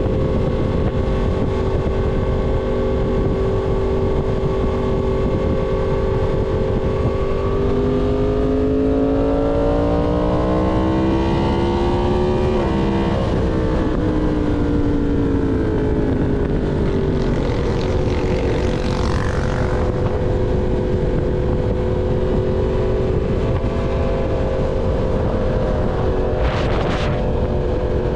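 Yamaha MT-10 crossplane inline-four with an SC Project full-system exhaust, heard from the rider's position under a steady rush of wind. It holds a steady note, then revs up smoothly over about five seconds, turns sharply at about thirteen seconds and falls away over three seconds before settling back to a steady cruise note.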